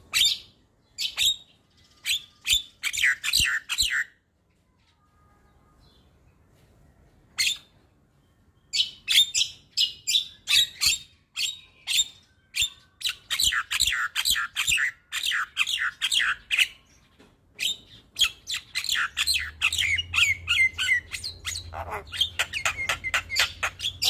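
Javan myna (white-vented myna) singing a fast, varied song of sharp chattering notes and squawks. After the first few bursts it pauses for about three seconds, then chatters almost without a break from about nine seconds in.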